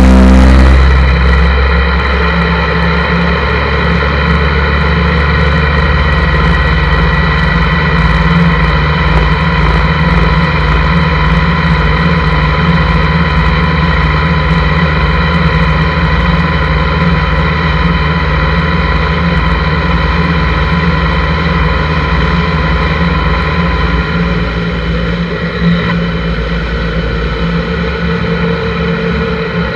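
A 1983 Honda GL1100 Gold Wing's flat-four engine running at a steady road speed, with wind and tyre noise from a handlebar-mounted camera. There is a brief louder rush right at the start, and the engine note shifts near the end.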